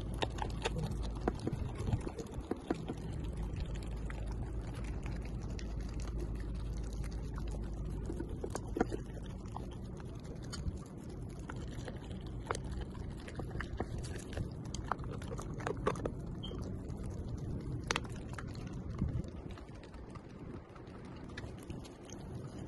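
German Shepherd puppy eating raw chicken and meat from a stainless steel bowl: wet chewing and slurping with irregular sharp clicks.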